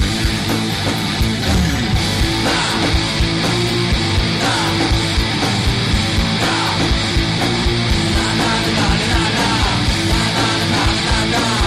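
Loud rock song with distorted electric guitars and a steady drum beat, an instrumental stretch without vocals.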